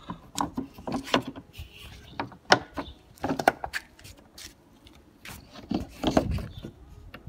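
Irregular handling noise of clicks, taps and rubbing, with one sharp knock about two and a half seconds in and a burst of low rubbing around six seconds in.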